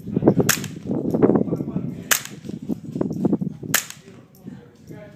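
Three suppressed shots, each a short sharp crack, about a second and a half apart, from a CMMG .22 LR AR-15 firing subsonic ammunition through a Gemtech Tundra 9mm suppressor.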